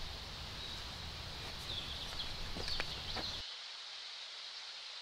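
Woodland ambience with a few faint bird chirps and two light clicks. About three and a half seconds in, the low background rumble cuts off suddenly, leaving a faint steady hiss.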